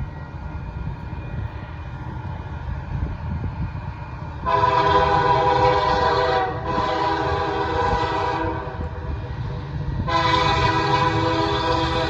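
Train's air horn sounding a chord of several tones over the low rumble of the passing train: a long blast about four and a half seconds in, a second right after a brief break, and a third starting about ten seconds in and still going at the end.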